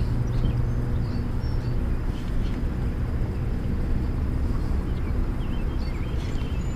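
Outdoor ambience: a steady low rumble with faint, scattered bird chirps.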